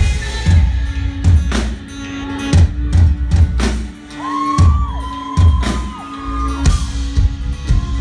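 Live pop-rock band in an instrumental break without vocals: drum kit hits over bass and electric guitar, with a sliding, held high note in the middle and a brief dip in loudness about four seconds in.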